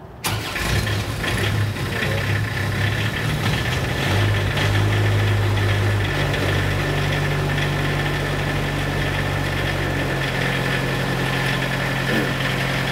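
Diesel engine of a self-generating nitrogen servicing cart starting on its glow plugs, catching almost at once, then running steadily while it warms up at around 1500 RPM. Its speed steps up about six seconds in and shifts again near ten seconds.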